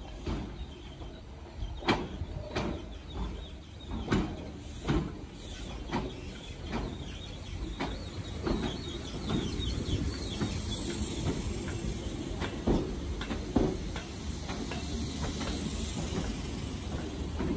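British Rail Class 313 electric multiple unit running into a station platform: a series of sharp knocks from the wheels over the rail joints, about one a second, over a steady rumble that grows louder as the cars draw alongside.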